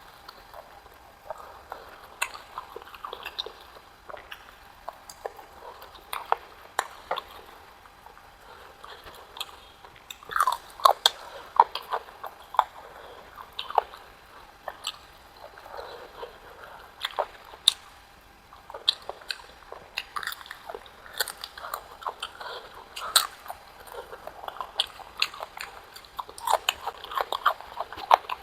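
A person chewing and biting food close to the microphone, eating-show style: many short, irregular wet mouth clicks and smacks, busier around the middle and toward the end.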